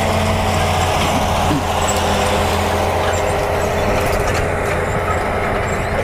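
Diesel engine of heavy harvest machinery running steadily at a constant speed, a low hum with steady overtones.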